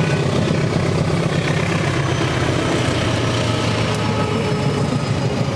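Diesel locomotive engine heading a passenger train, running with a steady, heavy low drone as the train approaches and passes close by.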